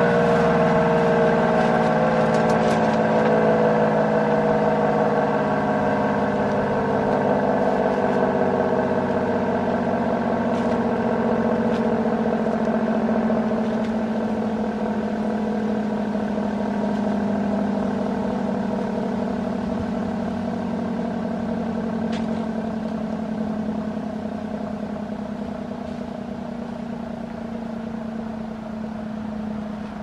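ACA P-10 rotating siren winding down after being cut off: its tone slowly falls in pitch over the first half and then levels, fading steadily as the horn keeps turning. It was cut short because it took the third activation tones for cancel tones.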